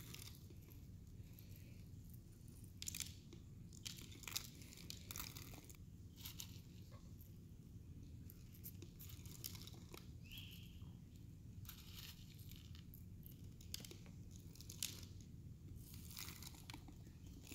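Faint, scattered scrapes and rustles of plastic spoons scooping dry dyed rice off paper plates and tipping it into plastic water bottles, over a low steady hum.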